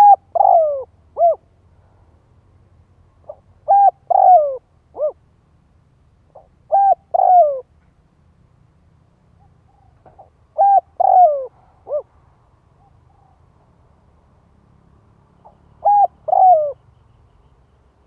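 Spotted dove cooing: five short phrases spaced a few seconds apart, each of two or three notes, with one note in each phrase sliding down in pitch.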